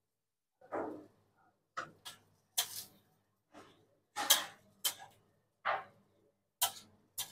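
Irregular short metallic scrapes and knocks, about ten in seven seconds, as a flat metal spatula lifts dosas off a griddle and sets them down on a metal serving tray.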